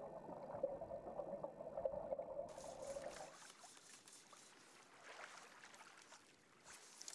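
Faint water trickling and bubbling as heard underwater, over a steady low hum. About three seconds in it drops to a much fainter hiss, close to silence.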